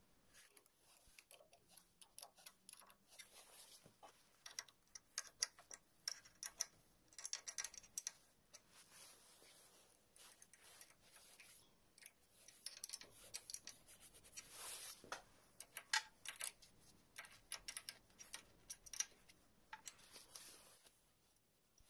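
Faint, irregular metallic clicks and ticks of a spanner and fingers working the nuts on the studs of a motorcycle engine's clear acrylic cylinder head.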